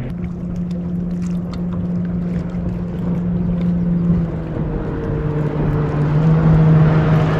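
Bass boat's bow-mounted electric trolling motor running steadily, a hum that shifts pitch about four seconds in, over a hiss of wind and water.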